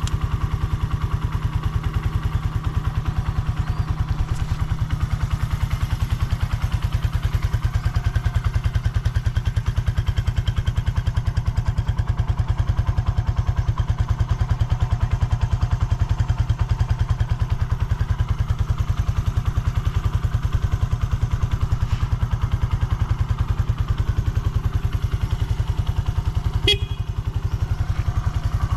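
Suzuki GN125H's air-cooled single-cylinder four-stroke engine idling steadily and evenly, with no knocks or odd noises. Near the end there is one short, sharp click.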